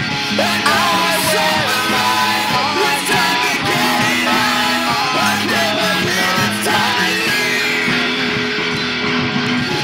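Rough demo recording of a song: a voice singing over guitar and held low bass notes that change every second or so.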